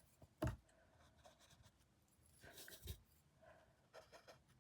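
Faint handling of painting tools on a canvas while colour is worked off: a sharp tap about half a second in, a short rubbing stroke ending in a knock near three seconds, and a few light clicks shortly after.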